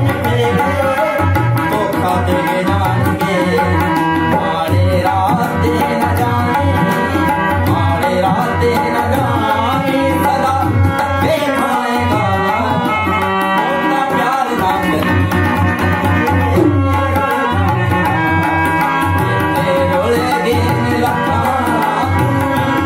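Harmonium playing held chords and a melody over a steady tabla rhythm, with a man singing a Punjabi folk song.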